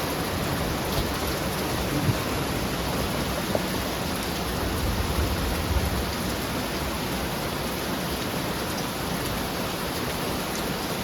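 Heavy rain pouring down steadily, an even hiss with scattered drips.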